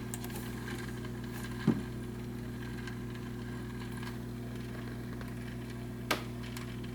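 Steady low electrical hum from a 1973 RCA stereo console's 8-track deck running with no music coming through, because the console's power is off. There is a click about two seconds in and another near the end.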